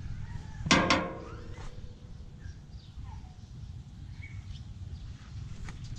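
Birds calling outdoors: one loud, short two-part call about a second in, then faint scattered chirps over a low background rumble.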